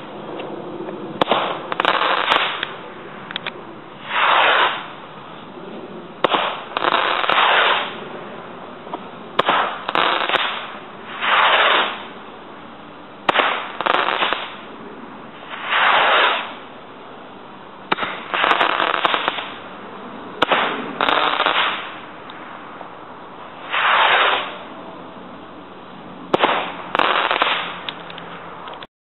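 A rapid series of Nemesis low-noise firework rockets going off: a rushing whoosh under a second long about every two seconds, with a few sharp pops and crackles from the bursts in between.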